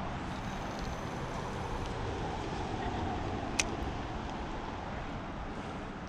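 Steady outdoor background noise, with one sharp click about three and a half seconds in.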